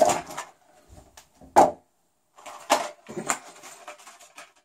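Plastic and cardboard toy packaging being handled: a clear plastic blister tray slid out of a cardboard box, giving several separate crinkles and clicks, the loudest about a second and a half in.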